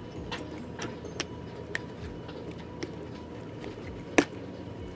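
Small scattered clicks and taps of a plastic glue bottle being handled and squeezed over a bowl, with one sharper knock about four seconds in.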